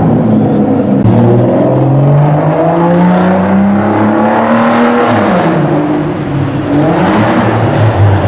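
Sports car engine accelerating hard, its pitch climbing for about four seconds before dropping sharply, then rising and falling once more near the end.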